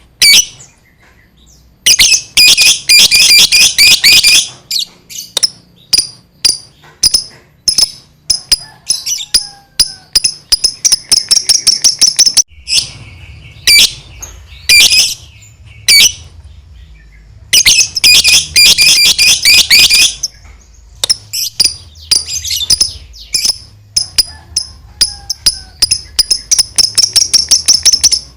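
Lovebird singing its long 'ngekek' chatter: very fast, high-pitched chattering trills in two long runs, one about two seconds in and one about halfway through, with many short sharp chirps between them.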